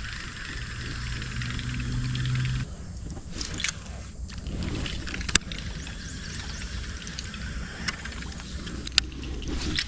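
A low, steady motor hum starts just after the beginning and cuts off suddenly after about two seconds. Behind it is a steady insect drone, with a few sharp clicks scattered through.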